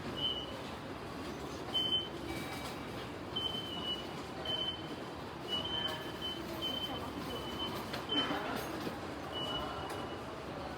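Traffic running past as a steady rumble, with short high beeps repeating at irregular spacing about a dozen times.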